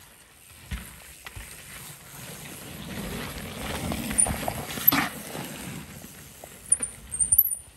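Mountain bike riding past on a dirt trail: tyre noise on the dirt builds to a peak with a sharp knock about five seconds in, then fades, with a few more clatters near the end.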